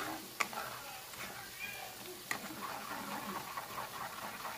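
A spoon tapping twice against a metal mesh strainer while skimming foam off simmering soup broth, with a quick soft bubbling ticking underneath from a couple of seconds in.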